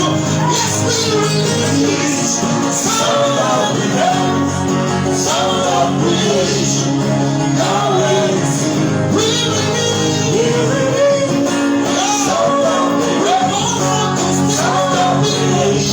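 Slow worship music: held chords with a voice singing gliding, curving melodic phrases over them, at a steady level.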